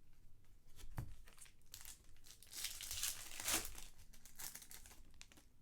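Trading card pack wrappers being torn open and crinkled by hand: a knock about a second in, then a long stretch of crackling and tearing that is loudest around three and a half seconds in, tapering to scattered crinkles.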